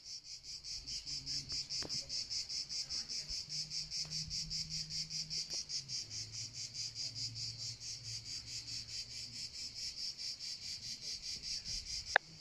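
Insects chirping outdoors in a steady high-pitched pulsing rhythm, about six pulses a second. A sharp click sounds near the end.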